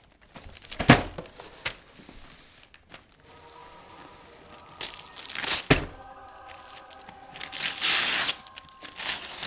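Gift-wrapping paper being torn and crumpled off a cardboard box in several separate rips, the longest near the end, with a couple of sharp knocks as the box is handled.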